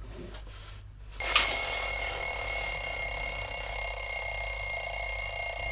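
A loud electronic alarm starts suddenly about a second in and rings on steadily in several fixed high-pitched tones.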